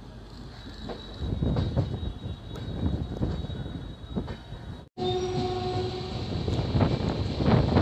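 Passenger train running, heard from the open doorway of a moving coach: wheel and rail rumble with irregular knocks, getting louder about a second in. After a brief dropout about five seconds in, a short steady horn note sounds for about a second over the running noise.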